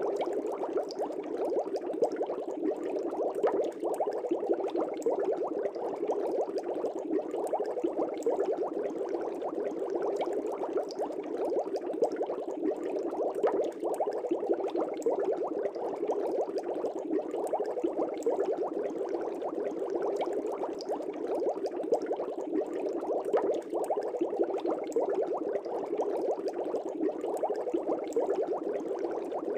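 Aquarium air bubbles rising and bursting at the water's surface in a fish tank: a steady, dense bubbling with many small pops.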